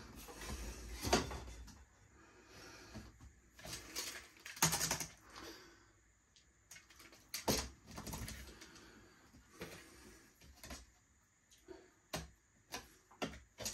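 Irregular clicks, taps and short scrapes from a tape measure and pencil being handled on a pine board while measuring and marking.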